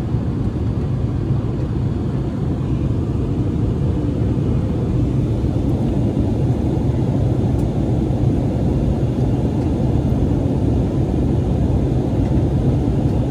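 Steady rumble of engine and airflow noise inside the cabin of an Airbus A320-family jetliner just after takeoff.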